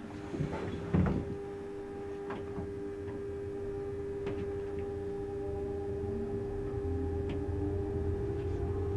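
Electric narrow-gauge railcar (RhB ABe 4/4) heard from its cab, moving slowly. A steady electric hum from the drive runs throughout, and a low rumble grows as the railcar picks up speed. A sharp knock comes about a second in, and a few lighter clicks from the running gear on the rails follow.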